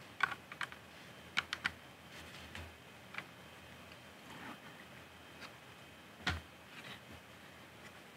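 Plastic Lego pieces clicking and tapping as they are pressed onto a large Lego plate: a scatter of small sharp clicks, the loudest about six seconds in.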